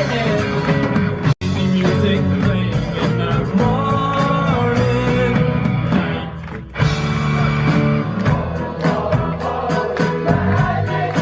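Rock-style music with singing, guitar and a steady beat. It cuts out for an instant about a second and a half in, and dips briefly before 7 seconds.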